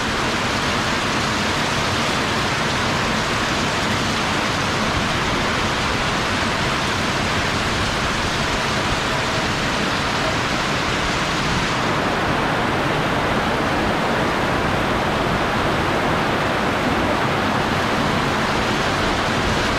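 Heavy rain pouring down in a rainstorm, a dense steady hiss. About twelve seconds in, the highest part of the hiss falls away.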